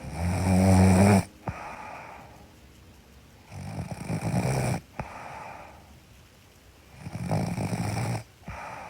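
A sleeping woman snoring: three loud snores, each about a second long, spaced about three and a half seconds apart, with quieter breathing between them.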